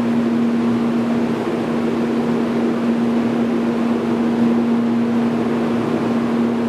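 Steady mechanical hum with a strong low drone from a Shinkansen train standing at the platform, its onboard equipment and air conditioning running.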